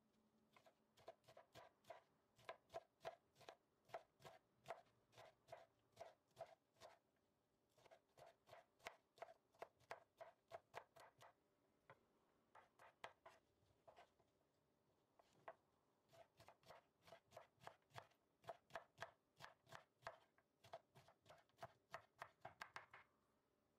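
Faint, steady knife chopping: a kitchen knife slicing fresh broad bean pods into rounds and tapping the wooden cutting board, about two to three strokes a second, pausing briefly a few times.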